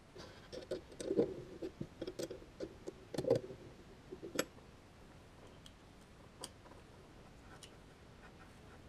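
Light clicks and knocks of small hard objects being handled, busy for the first four seconds or so, then only a few scattered ticks.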